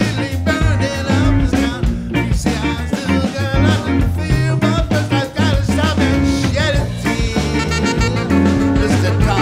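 Live band playing an upbeat ska-funk groove on electric guitars, bass, drum kit and keyboards, with a man singing lead.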